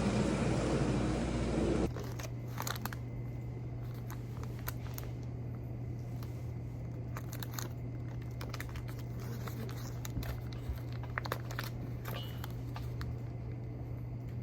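Loud, even background noise for the first couple of seconds, then a sudden cut to scattered crinkling and clicking handling sounds over a steady low hum.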